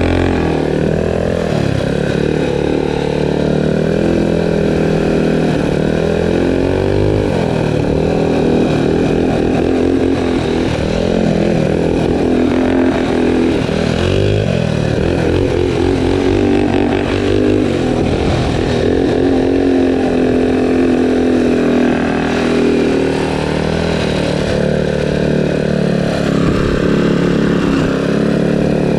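A minibike's small single-cylinder four-stroke engine running under load at road speed, its pitch rising and falling again and again as the throttle is opened and eased off.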